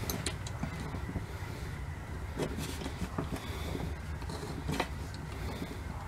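A few sharp clicks and taps of small metal parts as a nut and washer are worked onto a switch on a military vehicle's steel switch panel by hand, over a steady low background rumble.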